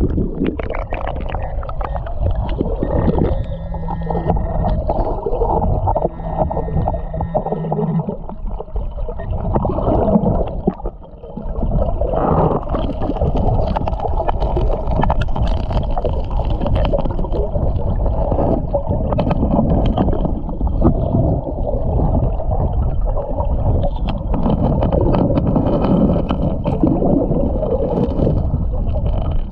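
Creek water and gravel heard through a submerged camera: a dense, muffled rumble full of small knocks and scrapes as a hand digs into the gravel bed and stirs up silt. A steady two-pitched tone sounds for several seconds, starting about three seconds in.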